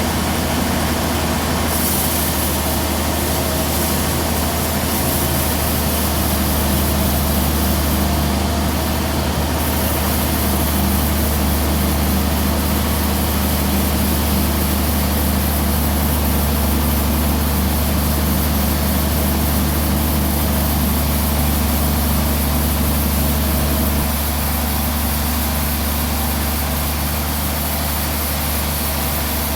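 Heavy engine running steadily with a deep, even drone, easing slightly in level near the end.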